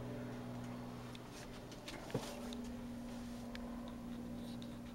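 Distant helicopter droning steadily overhead, with a sharp click a little over two seconds in.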